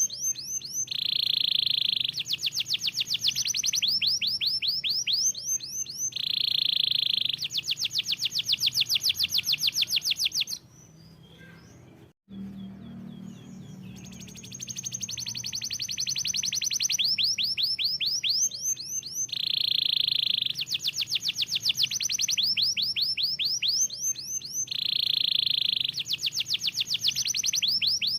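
Canary singing: long, very fast trills of rapidly repeated notes alternating with short, steady whistled tones, with a pause of a few seconds about halfway through before the song resumes.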